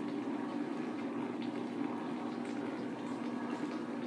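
A steady hum and hiss with a few faint light taps.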